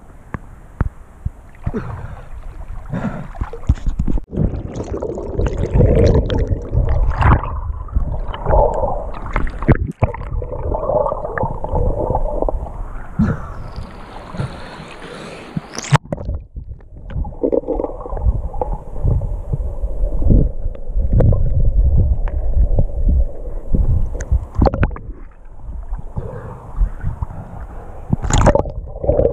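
Waterproof action camera moving underwater and through the surface of a river: muffled sloshing and gurgling water with knocks against the housing, and a brighter splashing hiss about halfway through that cuts off suddenly.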